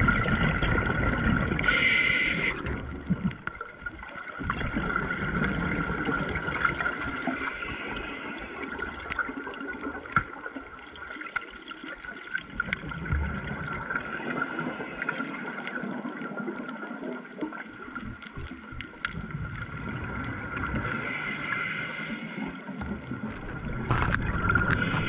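Underwater sound of a scuba diver's regulator: exhaled bubbles gurgling and rushing past the camera, with a few louder bursts, over a steady thin hum.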